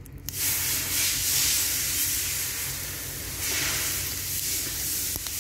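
A steady hiss of noise that starts abruptly just after the start and carries on unbroken.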